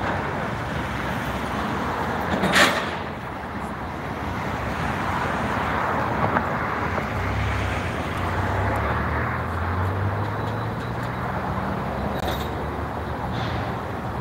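Road traffic passing on a busy road, with a short sharp noise about two and a half seconds in and a low engine hum in the second half.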